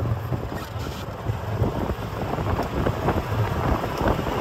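Wind buffeting the microphone of a camera riding in a moving open golf cart, over a low, uneven rumble from the cart on the road.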